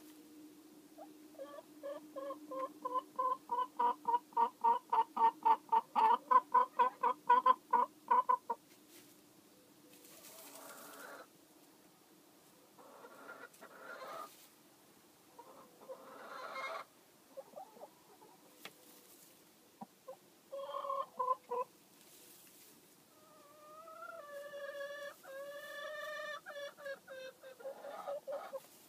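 Hen sitting on eggs in a straw nest box, clucking: a fast, even run of clucks, about three a second, for several seconds, then straw rustling, a few more clucks, and a longer drawn-out call near the end.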